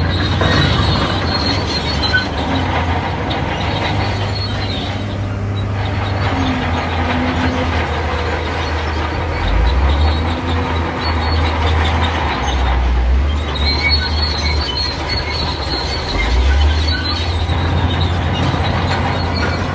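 Shantui D31P crawler bulldozer running, its diesel engine humming and shifting pitch as it works under load, with the steel tracks squealing and clanking at intervals.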